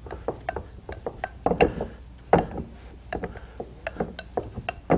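Wooden rolling pin rolling puri dough thin on a wooden board: a quick, irregular run of light wood-on-wood clicks and knocks, with a couple of louder knocks in the first half.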